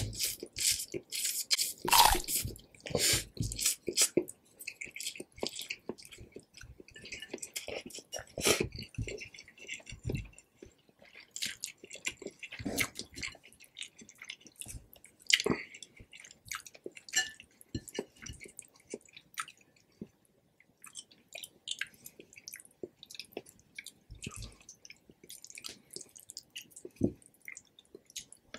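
Close-miked eating sounds of a mouthful of Indomie Mi Goreng fried instant noodles: wet slurping and chewing clicks, densest and loudest in the first few seconds, then slower, softer chewing and lip smacks.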